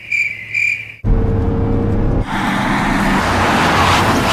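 Two short high chirps, then about a second in the sudden sound of a car driving, engine hum and road noise building towards the end, with music.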